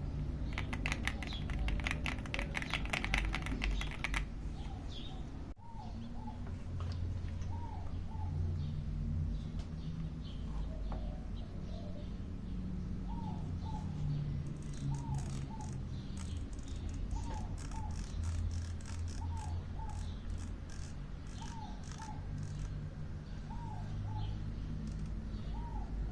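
AULA F75 MAX mechanical keyboard clicking, first as rapid typing for about four seconds, then as scattered single clicks in the second half. Birds chirp in short repeated calls behind it.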